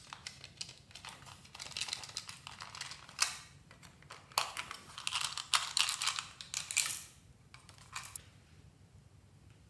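Hard plastic clicking, rattling and knocking from a plastic toy guitar being handled and turned over, with several sharper knocks; it stops about eight seconds in.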